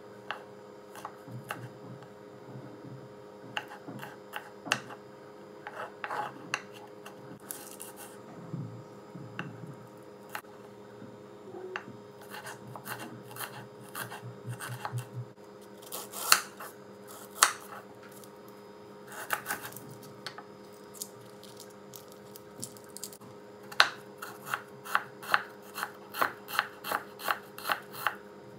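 Knife chopping garlic, ginger and onion on a wooden chopping board: sharp knocks of the blade striking the board, irregular at first, then an even run of about two to three chops a second near the end.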